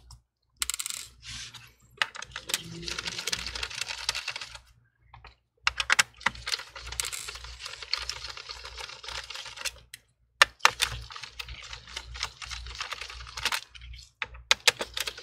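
Phillips screwdriver backing out the small bottom-cover screws of an Asus Vivobook laptop: three runs of fast, dense clicking and scraping, separated by short pauses, with several louder sharp clicks.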